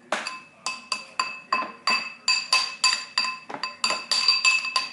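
A spoon banging over and over on a bowl during a baby's self-feeding, about three to four sharp clinks a second, each ringing briefly with the same bright tones.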